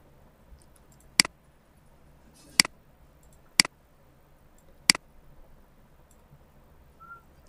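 Four sharp computer mouse button clicks about a second apart, each with a softer tick right after, over a faint steady background hum.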